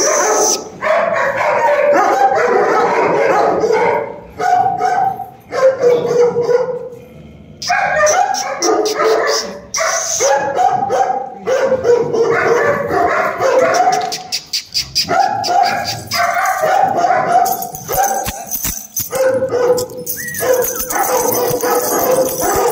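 Large mastiff-type dogs barking over and over, with a short lull about seven seconds in.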